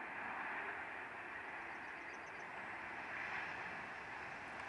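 Bombardier CRJ900 regional jet rolling out on the runway just after touchdown: a steady rush of jet noise from its two rear-mounted General Electric CF34 turbofans, which grows a little louder at the start.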